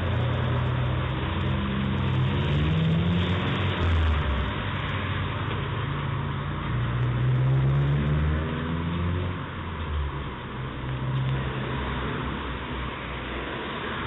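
Busy-street road traffic heard through a doorbell camera's microphone: several vehicles driving past, their engine notes rising and falling over a steady rush of road noise, easing off a little in the second half.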